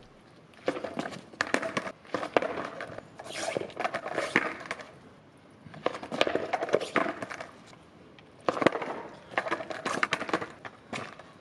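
Skateboard on a rain-wet asphalt street: wheels rolling in four short runs, each broken by sharp clacks as the board is popped, flipped and lands.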